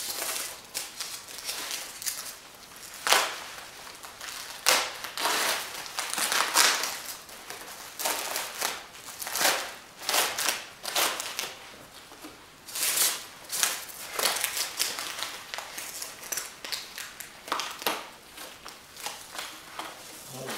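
Foam packing peanuts and plastic wrap rustling and crunching as flat wooden kit parts are dug out of a packed box, in irregular bursts with a few sharper clacks.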